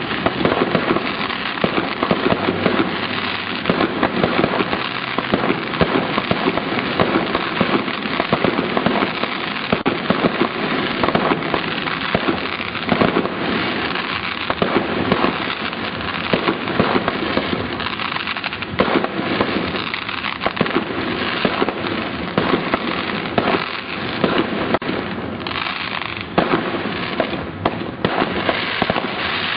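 Fireworks going off in a dense, rapid crackle of many small bangs with no pause.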